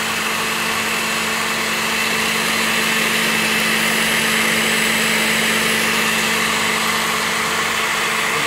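Dawlance countertop blender running steadily, its motor whirring as it blends watermelon chunks with mint leaves into juice.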